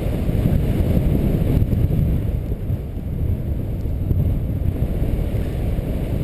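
Wind from a paraglider's flight buffeting the camera microphone: a steady low rumble.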